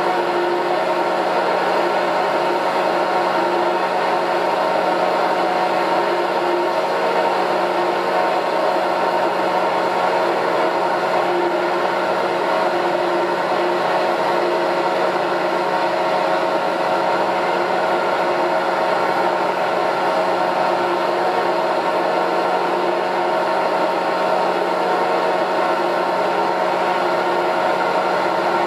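Petzholdt PDSM double-screw mixer running empty, its electric drives turning the mixing screws and agitator in the open pan: a steady machine hum with several held tones.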